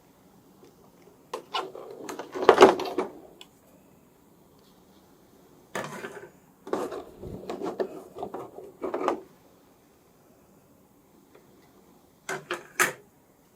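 Handling noises from unboxing a toy action figure: packaging and figure rubbed, shifted and knocked in several short bursts, the loudest about two and a half seconds in, with a couple of sharp clicks near the end.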